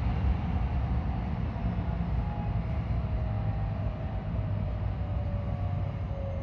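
JR West 223 series 2000 electric multiple unit running on the track: a steady low rumble with a thin electric motor whine that slowly falls in pitch as the train slows.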